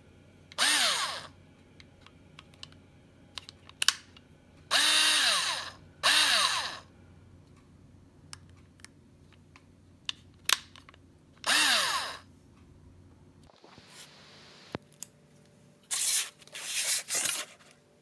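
Black+Decker BDCD8 8-volt cordless drill/driver with a screwdriver bit, run free in four short bursts; each spins up in pitch and winds down again. Near the end come three quick bursts as it drives a screw into a board.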